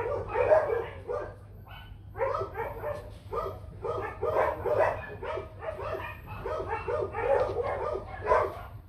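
A group of puppies yapping and barking, many short calls close together with a break of about a second near the start.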